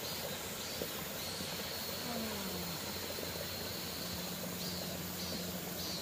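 Cicadas singing: a steady, high buzzing drone that sets in about a second in, with several short rising-and-falling swells near the end, over the steady hiss of a running mountain stream.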